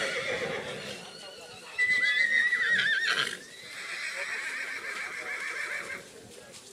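Black Forest draft horses whinnying: the tail of one call at the start, a loud whinny with a wavering pitch about two seconds in, then a quieter, longer whinny that stops about six seconds in.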